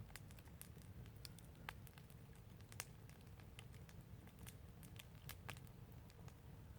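Fire crackling faintly: irregular sharp pops and snaps, the loudest about three seconds in, over a low steady rumble.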